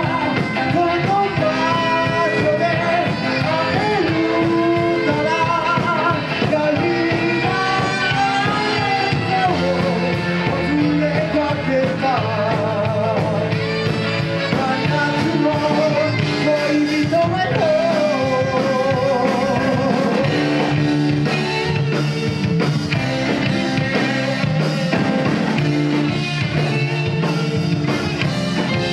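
A live band playing a rock song, with a singer and guitar.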